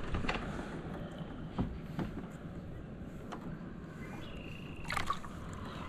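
Light splashing and a few short knocks as a hooked largemouth bass is grabbed by hand at the side of a kayak, over a low steady hiss.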